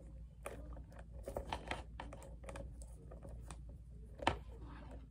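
Small clicks and rustles of a leather handbag and its strap being handled, with one sharper click about four seconds in, over a low steady room hum.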